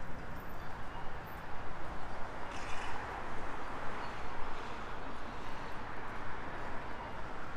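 City street ambience: steady traffic noise with vehicles passing, swelling about three seconds in.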